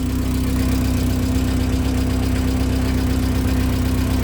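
1990 Volkswagen Golf Mk2 engine idling steadily with a constant drone through a bad exhaust resonator, a noise the owner hates and means to cut out.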